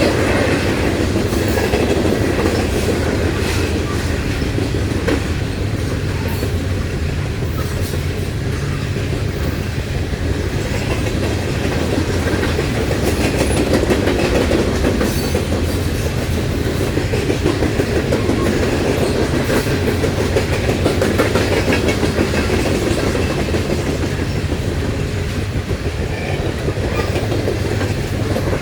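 Loaded coal gondolas and hoppers of a freight train rolling past. A steady heavy rumble of steel wheels on rail, with clickety-clack over the rail joints.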